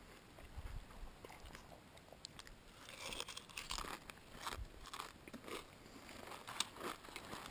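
A person chewing a mouthful of dry Raisin Bran bran flakes, no milk: a run of crisp, irregular crunches, coming thicker from a few seconds in.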